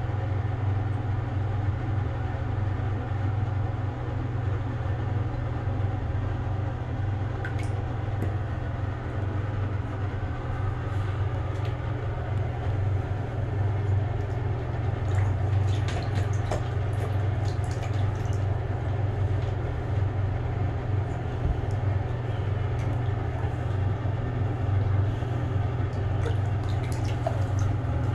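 A steady low hum under an even rushing noise, with faint light splashes and drips of water now and then.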